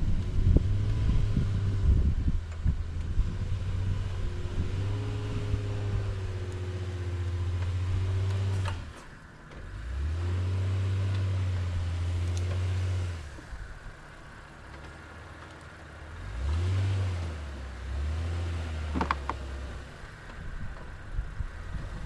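Lifted Honda Passport's 3.5-litre V6 engine pulling the SUV slowly over a rocky trail ledge, revs rising and falling in several pushes with short easing-off pauses between them. A sharp click sounds near the end.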